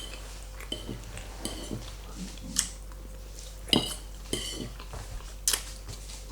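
Fork clinking and scraping against a plate of pasta in scattered, irregular clicks, the sharpest about two and a half, four and five and a half seconds in.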